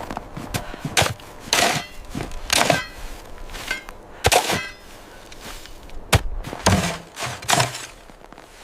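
A series of irregular knocks and crunching thuds, about seven in eight seconds, each brief with a short rough tail.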